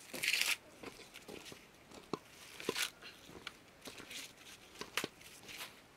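Green husks being torn off fresh ears of maize by hand: papery rustling and tearing. The loudest tears come about a third of a second in and again near the middle, with small crackles and snaps between them.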